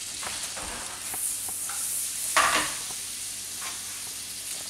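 Chopped onion and sage sizzling as they fry in melted butter in a frying pan, a steady hiss, with a short, louder noise about halfway through.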